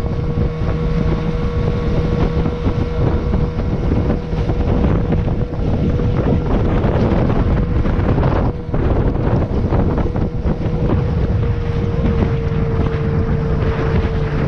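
Boat's outboard motor running at a steady speed under heavy wind buffeting the microphone, its pitch sinking slightly near the end.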